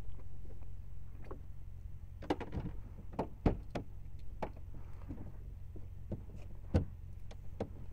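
Scattered faint clicks and knocks, about half a dozen, over a low steady hum in a formula race car's cockpit while its engine is not running.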